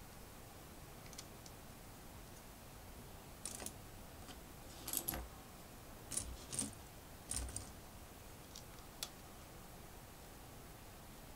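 Plastic Lego pieces clicking and clattering as they are handled while building, in several short bursts of clicks through the middle, the loudest a little under halfway in.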